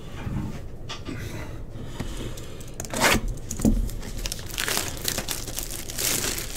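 Plastic shrink-wrap crinkling and being torn off a sealed cardboard trading-card box, in a series of crackling rips, the loudest about three seconds in.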